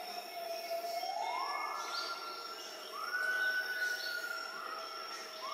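Gibbon song: about four long, clear hooting notes, each sweeping up in pitch and then held while sliding slowly down, the first rising gradually and the later ones rising quickly. A thin, steady high-pitched tone runs behind them.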